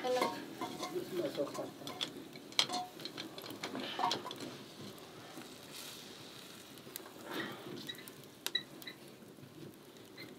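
Sparse small clinks and knocks of metal cookware being handled around a kettle on a wood stove, a few of them ringing briefly about eight seconds in.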